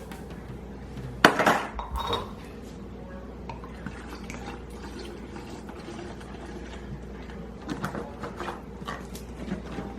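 Pots, pans and utensils clattering: a sharp knock about a second in and another just after, then lighter clinks near the end.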